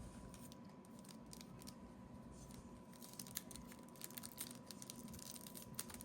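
Faint crinkling and ticking of a foil trading-card pack wrapper being worked at and torn open by hand. The crackles are scattered at first and come more often in the second half.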